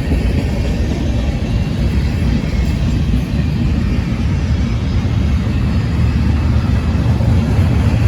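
Freight train rolling past, a steady loud rumble from its cars on the rails.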